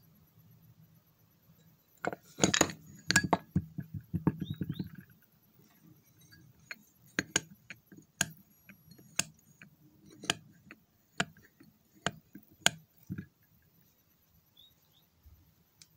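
Metal parts of a scooter's centrifugal clutch and variator pulley being handled and set down on a wooden bench: a quick cluster of clinks and knocks a couple of seconds in, then single sharp metallic clicks about once a second until near the end.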